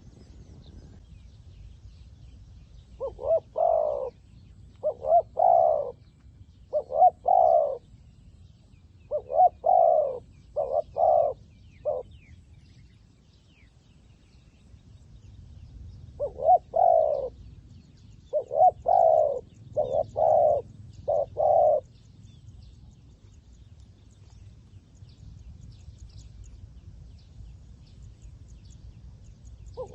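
Zebra dove cooing in short phrases of two to four clipped notes, in one bout starting about three seconds in and a second starting around sixteen seconds. This is a decoy dove calling to draw wild doves down. Faint high chirps and a low rumble continue between the phrases.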